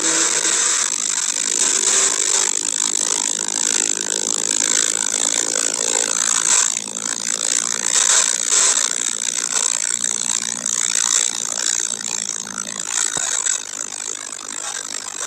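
Cabin sound of a Porsche 911 Carrera 4S (992) at speed on a soaking-wet track: a steady, loud hiss of tyre spray and wind over the faint note of its twin-turbo flat-six. The noise eases over the last few seconds as the car slows and downshifts.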